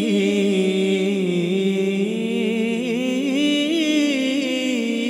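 A man singing one long, wavering, drawn-out note in an unaccompanied naat recitation, with backing singers holding a steady hum beneath.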